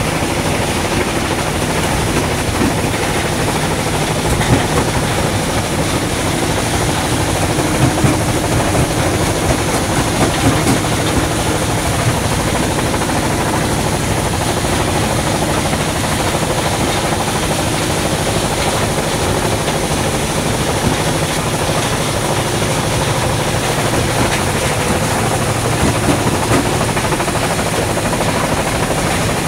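Iron-ore stone crushing plant running: a loud, steady mechanical din of the crusher and conveyors, with a few louder knocks now and then.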